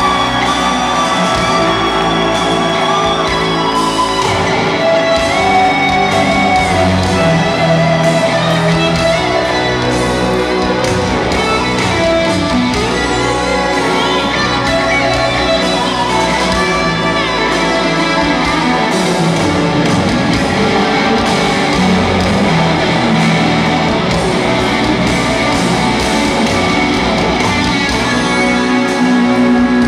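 Live rock band in an arena, led by an electric guitar bending and sliding between long notes over a full band, with the crowd shouting along, heard with the hall's echo from within the audience.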